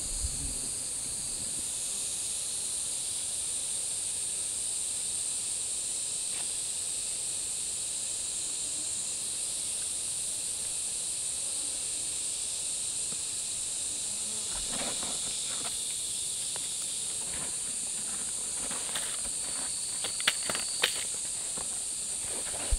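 Steady, high-pitched insect chorus, with a scatter of sharp clicks and knocks in the last third; two of them, about twenty seconds in, are louder.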